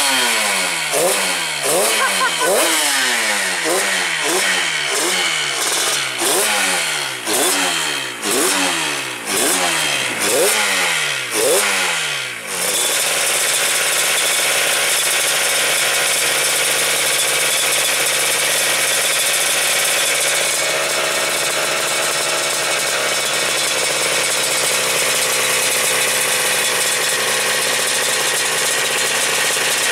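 Freshly rebuilt Yamaha TZ two-stroke racing engine on its first run-up, blipped hard over and over, each rev rising sharply and dying back, roughly every three-quarters of a second. About twelve seconds in the blipping stops and the engine settles into a steady idle.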